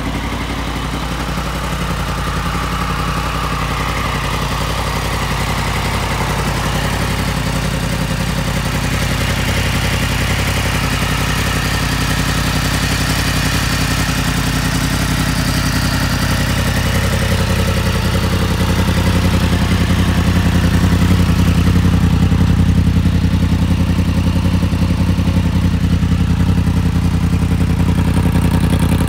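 Yamaha MT-10 SP's crossplane inline-four engine idling steadily through a Yoshimura Alpha exhaust, a little louder in the second half.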